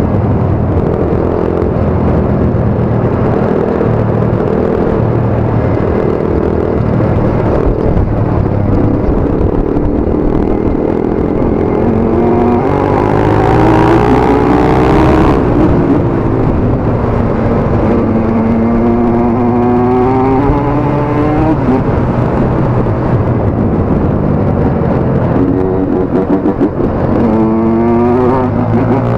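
Dirt bike engine running under way, its pitch rising and falling as it accelerates and eases off, loudest about halfway through.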